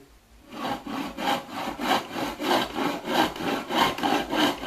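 Hand saw cutting through wood: a short pause, then steady back-and-forth rasping strokes, about three a second.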